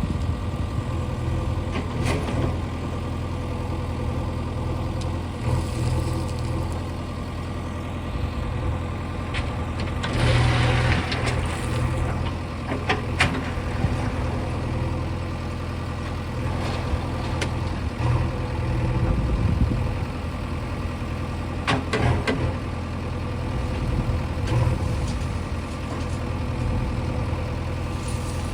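Diesel engine of a JCB 3DX backhoe loader running steadily as it loads a tipper truck, with occasional sharp knocks and a brief hiss about ten seconds in.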